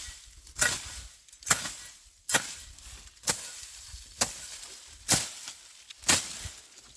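A hand tool chopping into the ground while digging cassava: seven sharp, evenly paced strikes a little under a second apart.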